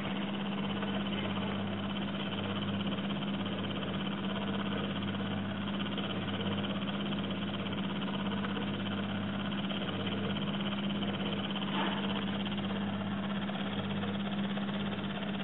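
Steady electric motor hum from the drive of a wooden automaton, with a low throb that pulses regularly as the mechanism turns.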